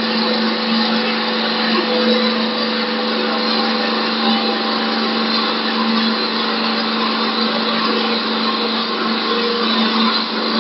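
Double-cutter CNC wood lathe turning a wooden blank: a steady motor hum under the rough, continuous noise of the cutters shaving the spinning wood.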